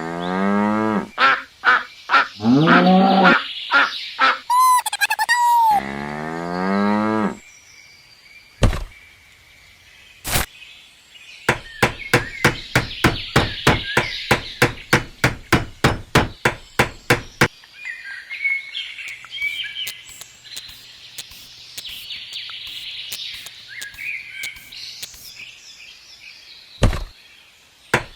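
A cow mooing several drawn-out calls, followed by a run of quick, even knocks at about four a second, then faint bird chirping.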